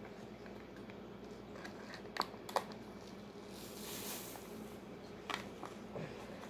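A few light crinkles and ticks from a small drink-powder packet being handled, then a soft hiss of powder pouring into a plastic beverage bag about four seconds in.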